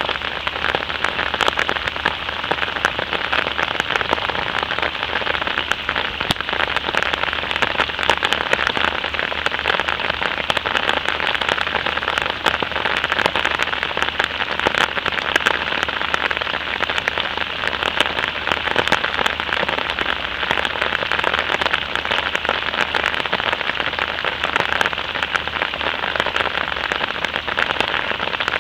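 Steady light rain falling on a surface, an even hiss with a dense patter of individual drops.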